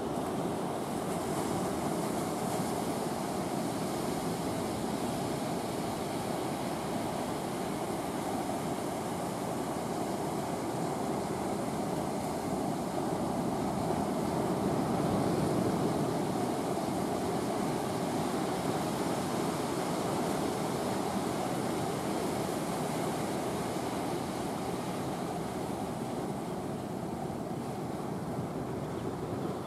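Steady rush of sea surf and wind, swelling slightly about halfway through.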